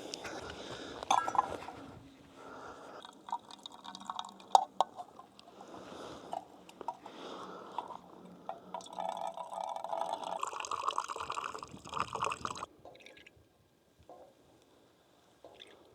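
Liquid pouring and sloshing, with small clinks, stopping suddenly a few seconds before the end.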